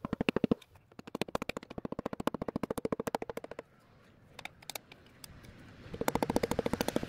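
Ratchet of a band-type piston ring compressor clicking rapidly as its hex key is turned to tighten the band around a piston. There are three runs of quick, even clicks: at the start, from about a second in to about three and a half seconds, and again near the end.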